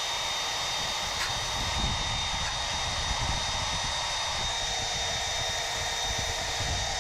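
Power drill spinning a polishing wheel against brake metal to clean off brake dust: a steady high whine over a broad hiss.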